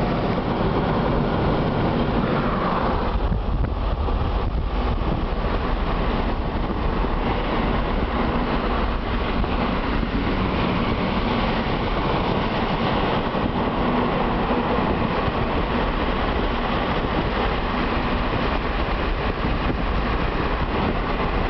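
A car driving at highway speed, heard from inside the cabin: a steady rumble of tyres on the road with a low engine hum.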